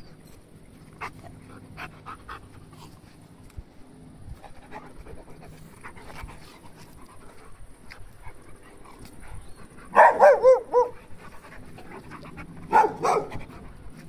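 Dogs play-fighting close by, with quiet panting and scuffling. There are two short, loud bursts of pitched, wavering dog vocalising, about ten and about thirteen seconds in.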